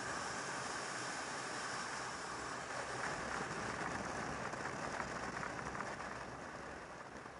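Wind rush and road noise on a moving motorcycle, a steady hiss that dies down near the end.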